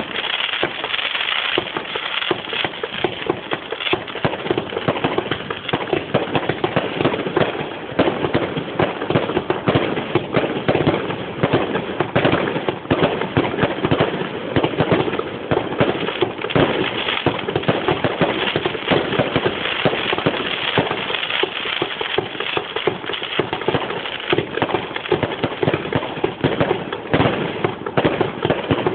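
A 100-shot finale firework cake firing a rapid, continuous barrage of shots, a dense run of bangs and crackle that keeps up steadily throughout.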